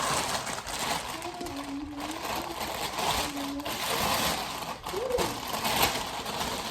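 A bag rustling and crinkling as it is handled and turned inside out.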